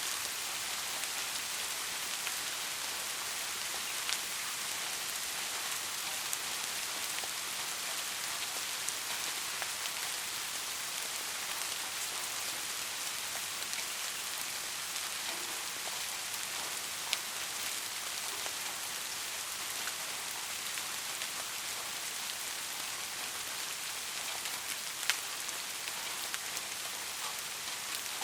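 Steady soft rain: an even hiss of falling rain with occasional sharper individual drops ticking on a surface.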